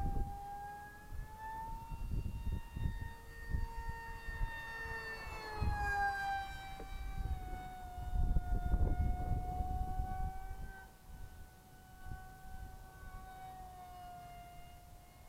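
Steady high whine of a radio-controlled electric model jet's motor and fan in flight. The pitch rises a little, then drops about halfway through as the jet passes, and stays level afterwards. Gusts of wind rumble on the microphone underneath.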